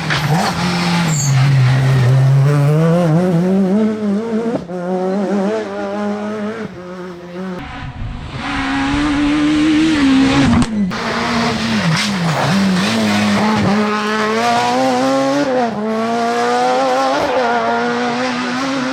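F2000-class rally cars' naturally aspirated two-litre engines revving hard, with the pitch climbing and then dropping sharply at gear changes, over several cut-together passes.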